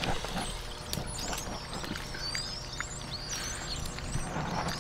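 Small birds chirping over and over in high, wavering notes, with faint small clicks of puppies lapping water from a cupped hand.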